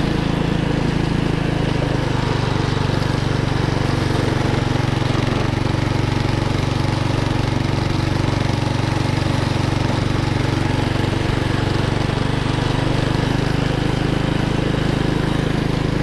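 Small gas engine of a homemade track sled running steadily near full throttle under load, a constant drone with no change in pitch. The clutch and belt drive are slipping, as the rider puts it, so the sled is at about its top speed.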